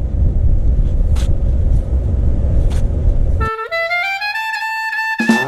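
A steady low rumble with a few faint clicks, which cuts off suddenly about three and a half seconds in. A single wind-instrument note then slides upward and holds, opening a jazz tune.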